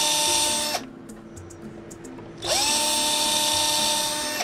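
Small handheld electric power tool running with a steady whine, stopping just under a second in, then starting again about two and a half seconds in with a whine that rises as the motor spins up and holds steady.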